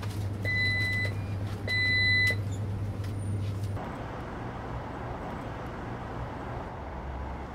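Two long electronic beeps from a shop's door-entry buzzer, about a second apart, over a low steady hum; a few seconds in this gives way to steady street noise.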